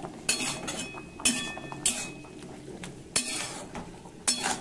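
Flat metal spatula stirring in an aluminium kadai, knocking and scraping against the pan about five times, several strikes ringing briefly.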